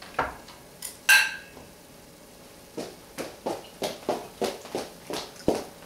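A plate set down on a plastic cutting board with a knock and a clink in the first second or so. Then quick, even footsteps, about three a second, as a person walks away.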